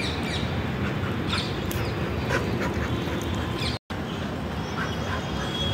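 Birds chirping: scattered short calls over a steady low background rumble, with the sound cutting out completely for an instant a little past the middle.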